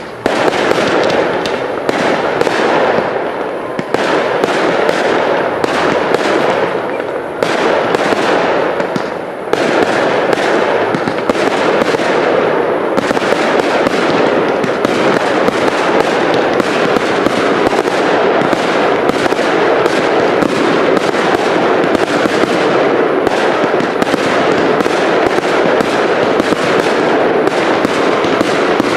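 Cake fireworks firing a loud, dense, near-continuous barrage of launch shots and aerial bursts, with a few brief lulls in the first ten seconds.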